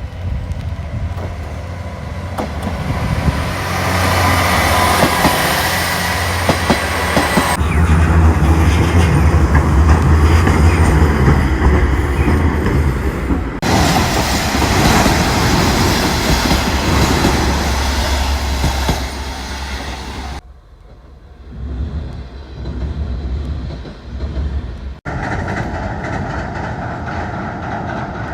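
Streetcars and trains running by on city tracks, a steady rail rumble with wheels clattering over the rail joints. The sound changes abruptly several times, once every five to seven seconds, as one passing train gives way to another.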